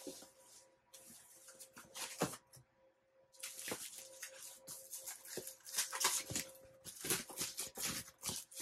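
Packaging being handled: irregular rustling and crinkling of plastic and foam, with a few light clicks and knocks, over a faint steady hum.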